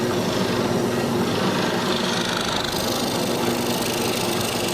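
Hollow-chisel mortiser running, its motor humming steadily while the auger bit inside the square chisel bores into wood to cut a mortise.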